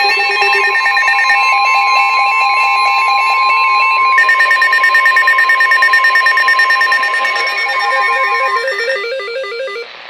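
Several weather alert radios going off together for a special marine warning: overlapping electronic beeps and warbling alarm patterns, over a long steady warning tone near 1 kHz. The beeping changes pattern about four seconds in, and most of it stops shortly before the end.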